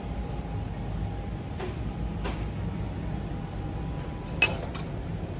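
Clear glass plates clinking as they are handled in a stack on a wire display rack: a few light clinks, with one sharp, ringing clink about four and a half seconds in, over a low steady background hum.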